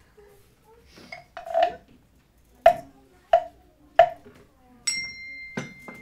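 Three sharp taps, evenly spaced about two-thirds of a second apart. Then a clink that rings on as a clear, high, bell-like ping for over a second, with one more tap while it rings.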